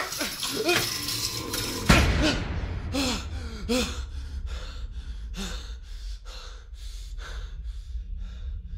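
A sharp thud about two seconds in, then a person's hard, gasping breaths about two a second that slowly fade, over a low rumble.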